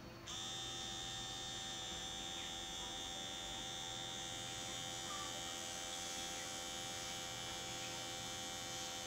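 Homemade mini blender's small electric motor switching on about a third of a second in, then running steadily with an even, high whine as it spins the blades chopping green chillies inside a plastic bottle.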